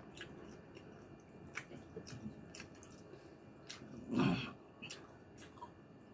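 Close-up eating sounds of a man chewing stewed pork (lechon paksiw): soft wet clicks and smacks scattered throughout, with one louder mouth sound about four seconds in.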